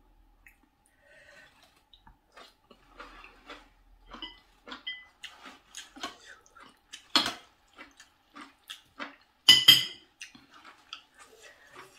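A spoon clicking and scraping against a plate as food is scooped, in a string of short light knocks, with two louder ringing clinks at about seven seconds and near ten seconds.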